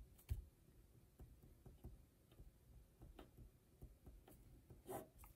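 Faint ticks and scratches of a pen writing on paper, with a sharper tap about a third of a second in and another near the end.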